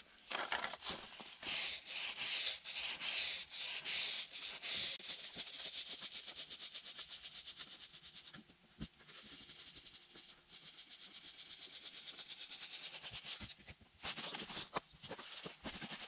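Coarse-bristled broom sweeping the wooden plank deck of a timber footbridge: rhythmic scraping strokes of the bristles on the boards, softer and quicker in the middle with a brief pause about halfway, louder again near the end.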